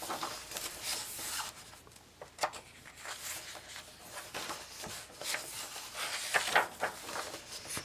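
Paper pages of a softcover coloring book being turned and smoothed flat by hand. The paper rustles and slides in several sweeps, with a few soft taps.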